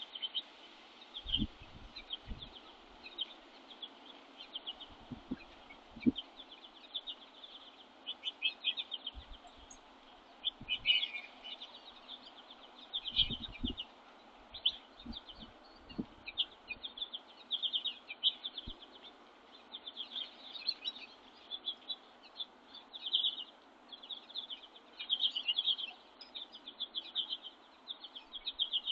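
Small songbirds chirping and twittering in quick runs of short high notes, busier in the second half, with a few dull low thumps.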